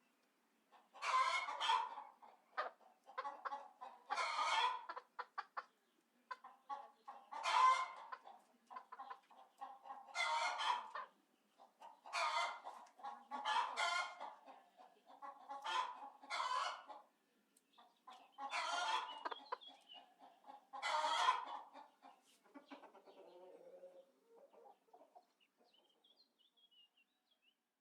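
Chickens clucking and calling: about a dozen loud calls of roughly a second each, some in quick pairs, with softer clucks in between. They die away to faint low clucking over the last few seconds.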